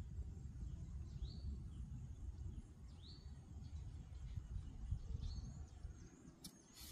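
A bird calling in short, rising whistled notes, repeated about every two seconds, over a steady low rumble. Two sharp clicks come near the end.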